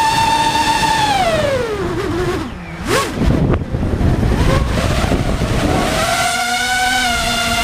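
Quadcopter drone's motors and propellers whining steadily. The whine slides down in pitch as the motors slow, turns into a rushing, fluttering noise with a quick swoop about three seconds in, then settles back into a steady whine at a slightly lower pitch near the end.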